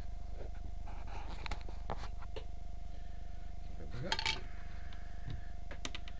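Small plastic items clicking and tapping as they are handled and set down on a cutting mat, with a short clatter about four seconds in as a small plastic case is opened. A steady electrical hum runs underneath.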